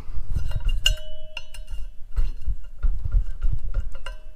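Tool clinking and scraping against a go-kart wheel rim as the old rubber valve stem is cut out, with many sharp clicks, a faint ringing from the rim after some of them, and low handling bumps.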